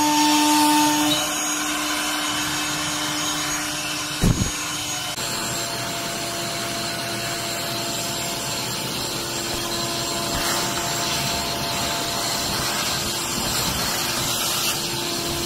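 CNC router with a HOG roughing bit cutting 3/4-inch MDF full depth in one pass at 325 inches per minute. A steady whine runs over a rush of cutting noise, with a brief low thump about four seconds in. About five seconds in, the whine changes pitch.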